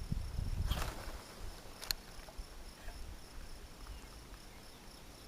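Insects trilling steadily in the background with two high, even tones. A low rumble in the first second or so, and a single sharp click about two seconds in.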